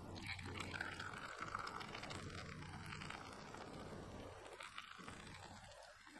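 A thin stream of hot water from a gooseneck kettle pouring onto ground coffee in a paper-filtered pour-over dripper: a faint, steady trickle as the grounds are wetted and swell.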